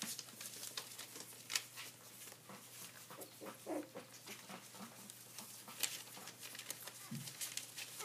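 Month-old terrier puppies moving about on newspaper: paws scratching and crinkling the paper in scattered clicks and rustles, with a few faint squeaks about halfway through.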